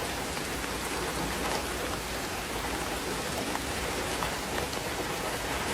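Heavy downpour on the tarp-covered roof of an electric-tricycle camper: a steady hiss of rain with scattered sharper drop ticks.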